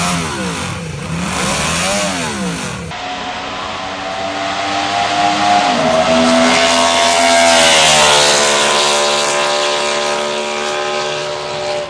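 Moto Guzzi 500cc V8 racing engine: first revved in short blips about once a second, then, after a cut, running hard on track, its many-toned high note swelling to a peak about two-thirds of the way through and shifting in pitch as it passes.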